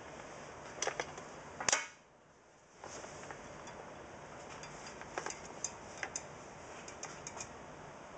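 Faint, irregular clicks from a caulking gun being worked while running a bead of silicone, over steady room noise; the clicks cluster in the second half, and the background drops out briefly about two seconds in.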